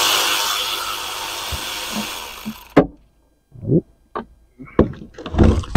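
Cordless power ratchet whirring steadily as it spins out the bolts holding the oil pump to the bottom of the engine, easing off and stopping just under three seconds in. After it come a few short metallic clunks and knocks as the parts are handled, the loudest near the end.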